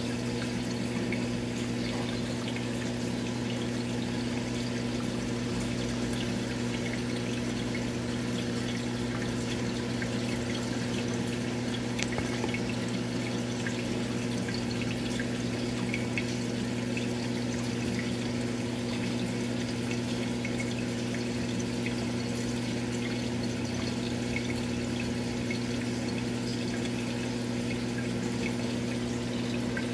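Aquarium pump running with a steady electric hum over water trickling and pouring, with scattered faint ticks.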